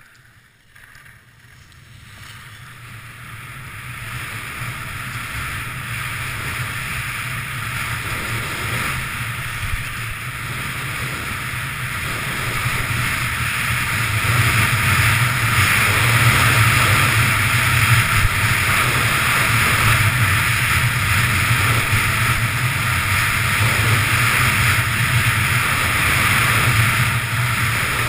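Skis running fast over groomed corduroy snow, with wind rushing over the skier's camera microphone; the rush builds over the first few seconds as speed picks up, then stays loud.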